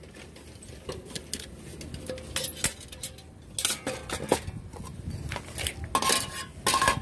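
Metal mess-kit pots and lids, stainless steel and aluminium, clinking and clattering as they are handled and set down on a glass tabletop, with a couple of short ringing clinks near the end.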